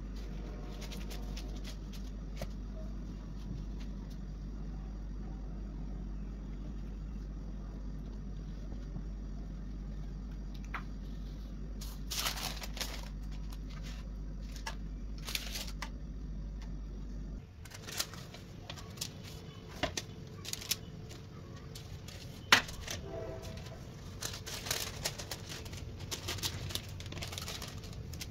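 Hands working dough and baking paper on a kitchen counter: rustling and crinkling paper with scattered light clicks and taps, over a steady low hum that drops out about two-thirds of the way in. The loudest sound is a single sharp tap about three-quarters through.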